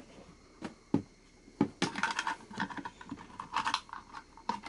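Small plastic clicks and scrapes as a LiPo battery and its wires are handled and pushed into an airsoft electric gun's battery space. A few separate clicks come first, then a busier run of small knocks and scraping.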